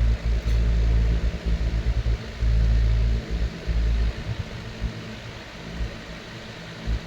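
Airflow from a running oscillating table fan buffeting the microphone: a low rumble in irregular gusts that cut in and out, over a faint steady hiss.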